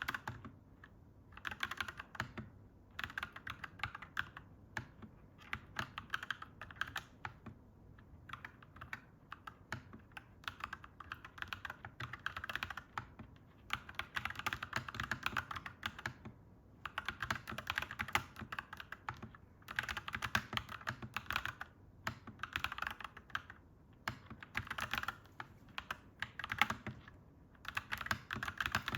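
Clacky mechanical keyboard being typed on in quick runs of keystrokes, broken by short pauses every few seconds.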